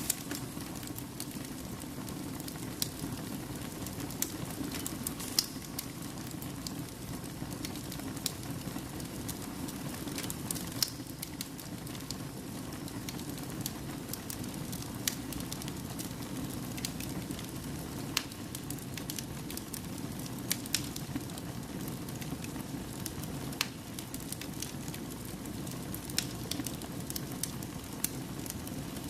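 Fire burning in a fireplace, crackling with irregular sharp pops over a steady low rush of flame.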